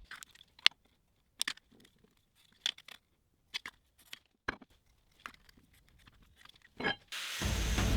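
Sparse light clicks, taps and scrapes, as of small metal parts and tools being handled on a bench. About seven seconds in, a loud continuous noise starts and carries on.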